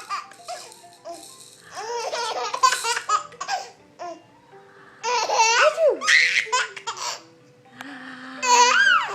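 A baby laughing in three bouts of high-pitched giggles and squeals, with a simple tune playing quietly underneath.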